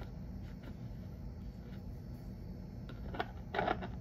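Faint clicks of a small metal air fitting being turned by hand, then a sharp click and a brief metallic clatter near the end as a wrench is brought onto it, over a steady low hum.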